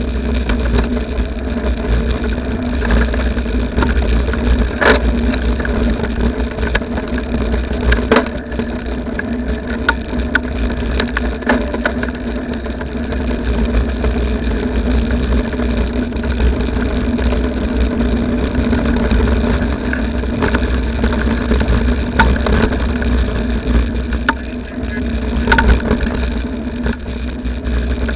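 A vehicle engine running steadily with a heavy low rumble and a steady hum. Sharp knocks and clicks sound every few seconds over the top.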